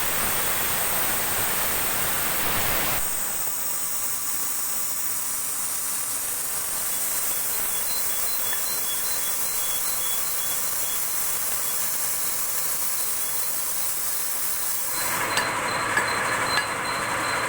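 Plasma cutter hissing steadily as it cuts a pipe. About three seconds in the hiss thins to a higher sound, and near the end it fills out again with a few sharp crackles.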